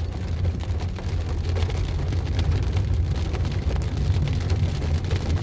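Fairly heavy rain, with many drops ticking sharply on a surface over a steady low rumble.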